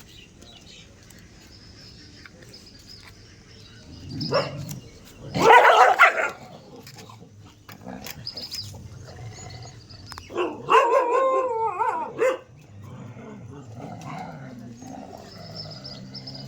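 A street dog barking in a few separate loud bursts, with pauses between them.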